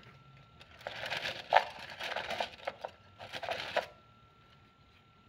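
Wooden fortune sticks rattling in a fortune-stick cylinder as it is shaken to draw a lot: a dense dry clatter starting about a second in and stopping after some three seconds.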